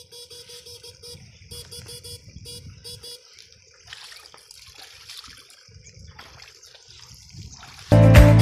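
Homemade electrofishing shocker buzzing in rapid, evenly spaced pulses, in several short runs, while the electrode pole is worked through the ditch water. Loud music cuts in near the end.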